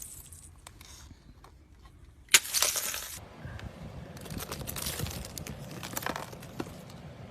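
Ice being broken off a car, cracking and crunching: one sharp loud crack a little over two seconds in with crackling after it, then scattered smaller cracks and crackling.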